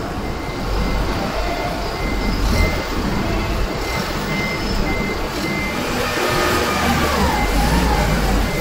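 Forklift running and manoeuvring with a loaded bin, its engine a steady low rumble, with a repeating reversing beep over the first few seconds.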